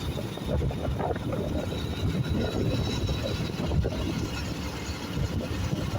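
Wind buffeting the microphone on a moving motorbike: a low, irregular rumble.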